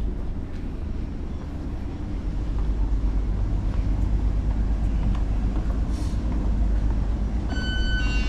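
Steady low rumble of a docked ferry's engines and machinery heard on the open deck, with several thin steady high tones coming in near the end.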